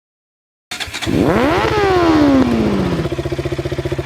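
Motorcycle engine catching after a few clicks, revving up once and falling back, then settling into a steady, pulsing idle about three seconds in.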